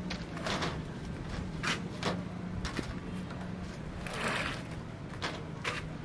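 Building-site work sounds: about five short scrapes or swishes, at irregular intervals, over a steady low hum.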